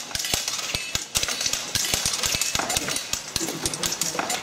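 Practice swords clashing in group sparring: a rapid, irregular stream of sharp clacks and knocks from several pairs of fighters at once.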